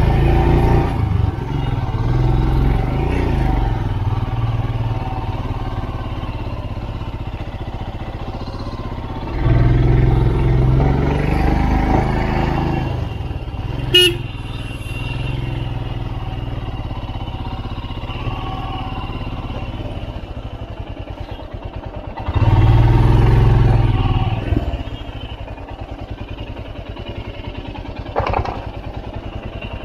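Motorcycle engine pulling in first gear up a very steep climb, growing louder in two stretches, about ten and twenty-three seconds in. A brief horn toot about halfway through.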